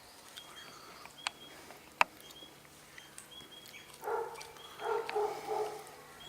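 Small birds chirping at a bird feeder in short, high calls throughout, with a sharp click about two seconds in. From about four seconds in, a run of short, lower-pitched calls comes in a few groups.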